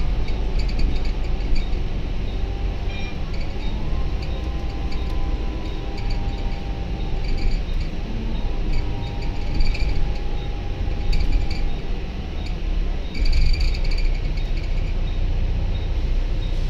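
Volvo B9TL double-decker bus's diesel engine and driveline heard from inside the lower deck on the move: a steady low rumble with a whine that rises in pitch twice, about three and eight seconds in, then holds. Light rattling of interior fittings runs through it.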